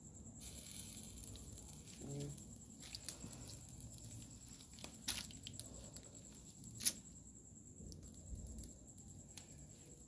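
Small wood cooking fire under a pot, crackling faintly with a few sharp pops.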